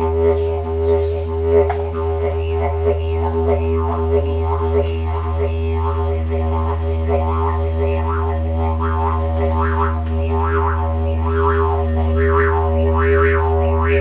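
Hand-crafted wooden didgeridoo playing one unbroken low drone. Rhythmic sweeps in the tone come about twice a second and grow stronger near the end.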